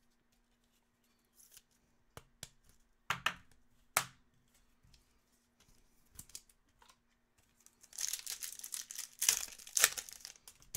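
Trading cards handled with scattered light taps and clicks, then from about eight seconds in a couple of seconds of crinkly tearing as a foil Topps Chrome Formula 1 pack wrapper is torn open.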